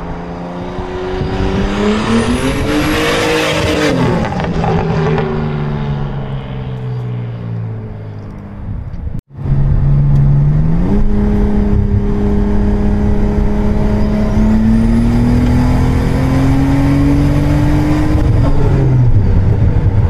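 A turbocharged BMW M20 straight-six, running a GT3076 turbo at about 1 bar of boost, accelerates past. Its engine note and a high turbo whistle climb, then fall away as it goes by. After a cut, the same engine is heard from inside the cabin accelerating under boost: the engine note climbs steadily, a high turbo whine rises over it, and the pitch drops near the end.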